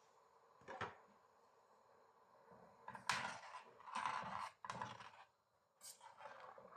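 Quiet household handling sounds: a single sharp knock about a second in, then a run of short noisy strokes with a brief pause between them.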